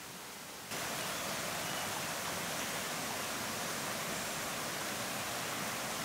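Steady rush of flowing water from a rocky forest stream. It cuts in abruptly and louder under a second in, after a fainter hiss.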